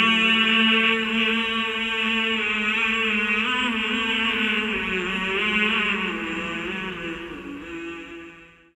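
Background vocal chanting in long, slowly bending held notes over a steady low tone, fading out near the end.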